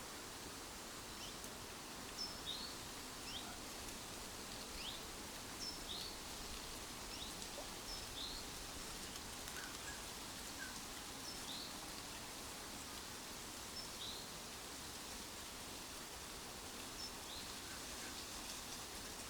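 Birds chirping: short, high, falling notes roughly once a second, thinning out in the last few seconds, over a steady rustling hiss of leaves in the trees.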